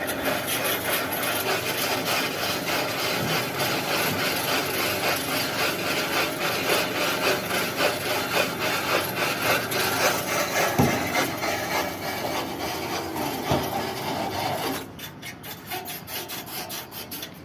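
Single-phase mini electric hoist running under load, a steady noisy whirr of motor and gearing with fine rapid ticking, which stops abruptly about fifteen seconds in.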